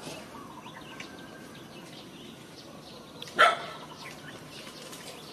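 A single short, loud bark-like animal call about three and a half seconds in, over faint ticks and small chirps.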